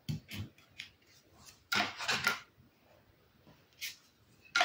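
Tarot cards sliding and rubbing against one another and a wooden tabletop as a card is moved off the deck. It comes in a few short papery scrapes, the loudest about two seconds in.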